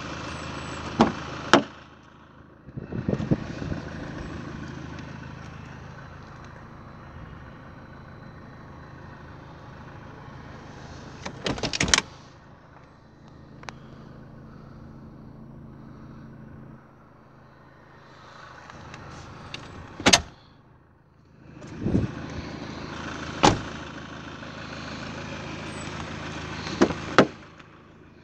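Ford Galaxy doors being opened and shut with the engine idling underneath: sharp handle and latch clicks and a series of door knocks and thuds, the loudest about twelve and twenty seconds in.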